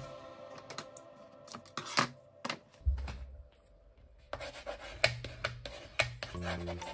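Paper and double-sided tape being worked by hand: scratchy rubbing and a few sharp taps as the tape is pressed down with a bone folder. Soft background music runs underneath.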